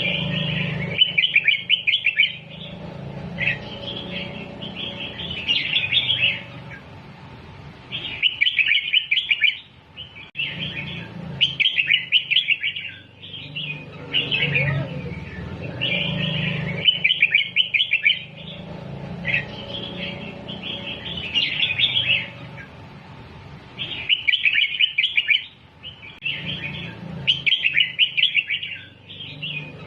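Red-whiskered bulbul singing in quick bursts of bright, chirpy warbled phrases. The same sequence of phrases comes round about every eight seconds, a repeated song recording used to teach young bulbuls to sing.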